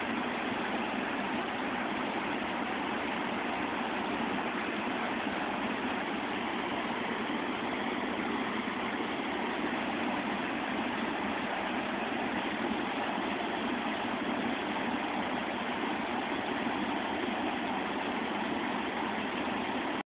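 River water rushing steadily over a low waterfall and shallow riffle, an even, unbroken noise.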